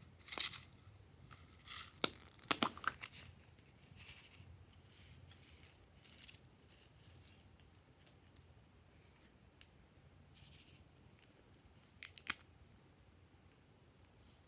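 Small plastic and foil containers handled and tapped while sequins and glitter are shaken out onto slime: sharp clicks and crinkles in the first three seconds, soft rustling after that, and a short run of clicks near the end.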